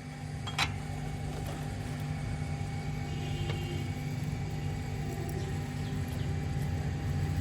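Toyota GLI's engine running steadily at idle, a constant low hum, with a single sharp click about half a second in.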